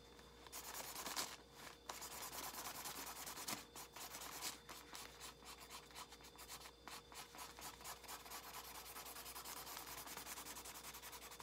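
A marker scribbling back and forth across a paper coffee filter: a faint, steady run of quick rubbing strokes that starts about half a second in.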